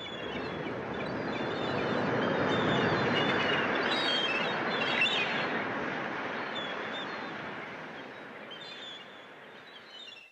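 Birds chirping over a rushing wash of noise that swells over the first few seconds and then slowly fades away.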